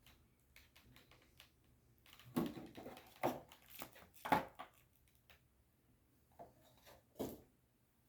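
Packaging of a model locomotive being handled: clusters of clicks and rustling crinkles between about two and five seconds in, then two short knocks near the end.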